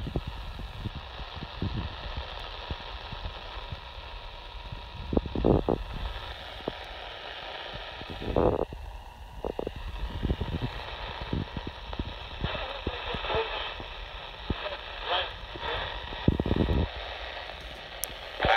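Handheld CB radio tuned to channel 19 (27.185 MHz AM), its speaker hissing with receiver static. Faint, broken bits of distant voice-like signals come through, and there are a few louder bursts of noise.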